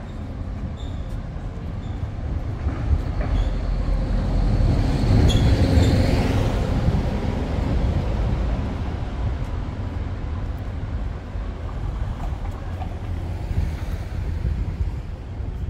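A motor vehicle passes close by on the street, its engine and tyre noise growing louder to a peak about six seconds in, then slowly fading away.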